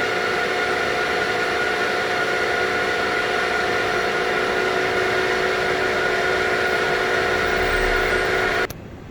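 VFD-driven CNC spindle motor running at a steady speed with a whine of several fixed tones. It is spinning much faster than its commanded 500 RPM because the controller's analog output is near 9 V instead of 5 V. The sound cuts off suddenly near the end.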